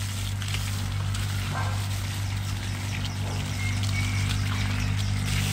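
Water from a garden hose spraying and splashing onto wet soil as it washes the dirt off a tree's root ball, over a steady low hum.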